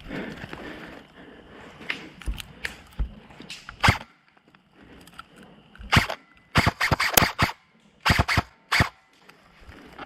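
Airsoft electric guns (AEGs) firing: a few scattered sharp shots, then a flurry of rapid shots from about six seconds in until nearly nine seconds.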